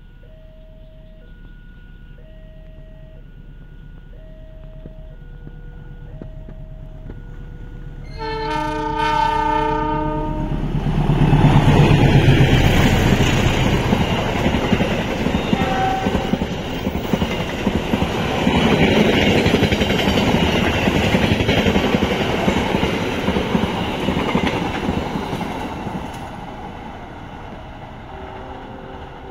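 A level-crossing warning alarm chimes in a repeating two-tone pattern, about one note a second. About eight seconds in, a diesel locomotive sounds its horn for about two seconds. The train then passes at speed with loud rushing rail and wheel noise for about fifteen seconds, and the crossing alarm is heard faintly again near the end.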